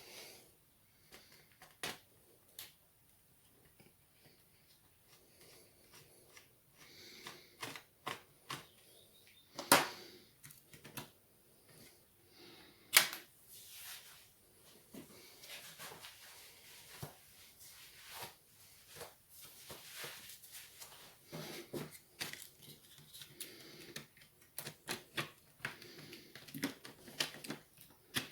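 Small tools and parts clicking and tapping on a workbench during a laptop teardown, with the internal metal plate being unscrewed and lifted out. Scattered light clicks, with two sharper clacks about ten and thirteen seconds in, and quicker clicking near the end.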